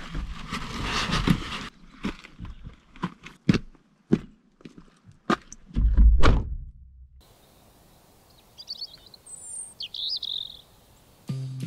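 Knocks and clatter of someone climbing out of a small hatchback, with a heavy car-door thump about six seconds in. Then quiet forest air with a few short bird chirps.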